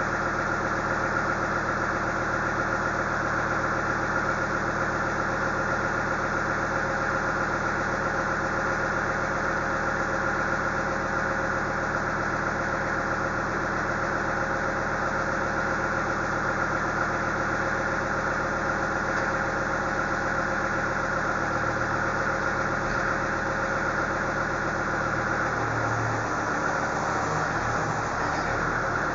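An engine idling steadily, with an even, unchanging drone throughout.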